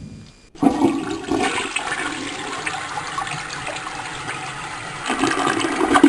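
A toilet flushing: a rush of water that starts suddenly about half a second in, swells again near the end and then cuts off abruptly.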